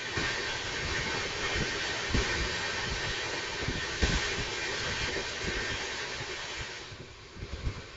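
Two trains passing each other on adjacent tracks, heard through an open carriage window: a loud rush of air and wheel noise with scattered low knocks from the wheels on rail joints. The rush fades near the end as the passing train clears.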